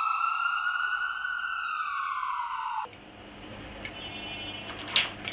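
An ambulance-style siren giving one long wail that rises and then slowly falls in pitch, cutting off abruptly about three seconds in. A quieter hiss follows, with a few clicks near the end.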